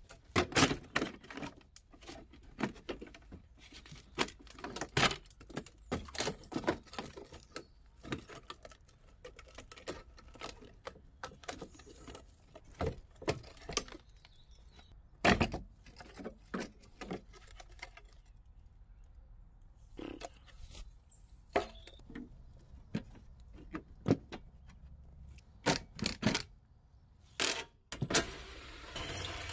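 Clinks, taps and scrapes of hand tools and loose metal and plastic parts as a car's crash-damaged headlight assembly is unscrewed and pulled out, heard as scattered sharp knocks. Near the end a Makita 18 V cordless drill runs briefly on a headlight bolt.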